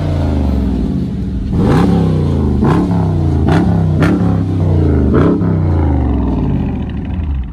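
A Dodge Charger's engine idles with a deep, steady rumble, and its throttle is blipped about five times in quick succession. Each blip is a short rev that rises and falls straight back to idle.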